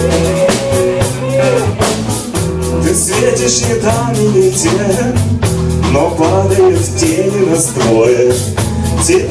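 Live rock band playing loudly: electric guitars and a Pearl drum kit with steady drum hits, and a melody line bending in pitch over the top.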